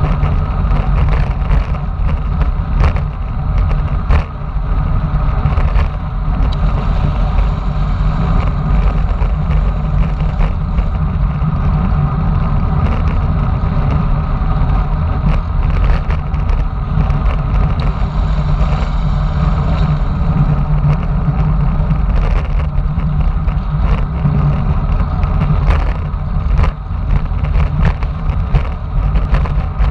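Wind rushing and buffeting over a bike-mounted camera's microphone on a fast road-bicycle descent. It is a steady loud low rumble mixed with tyre-on-asphalt noise, and frequent small knocks from bumps in the road.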